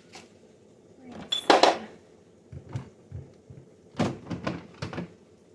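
Kitchen items being handled: a run of clattering knocks and soft thumps as containers and dishes are picked up, set down and knocked together, loudest about a second and a half in, with a quick cluster of knocks near the end.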